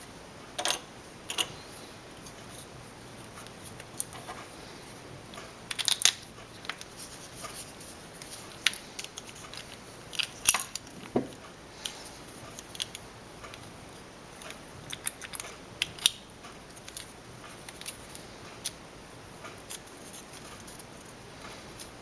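Hard 3D-printed plastic puzzle-box parts being handled and fitted together: irregular clicks and taps as the plates are turned and set against each other, with a few louder knocks.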